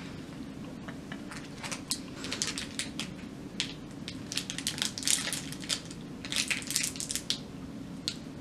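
Plastic candy bar wrapper being torn open and crinkled in the hands, a dense irregular crackle that comes in clusters and stops a second or so before the end.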